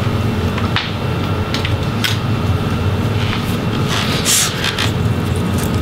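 A few light clicks and rustles of hands handling a disassembled laptop's bare palm rest assembly, over a steady low hum.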